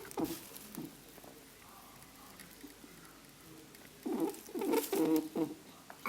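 Pet rabbit grunting: a couple of short grunts near the start, then a quick run of several grunts about four seconds in.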